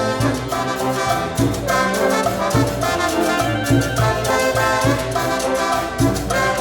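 Brass band playing an instrumental passage of Peruvian cumbia, with trumpets and trombones carrying the melody over a steady dance beat.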